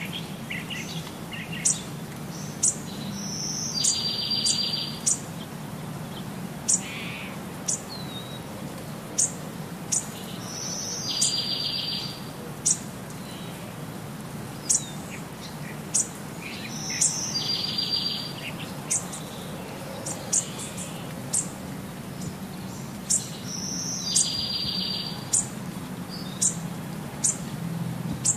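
Birds chirping: short, sharp high chirps about once a second, with a buzzy trill that returns about every six or seven seconds, over a low steady hum.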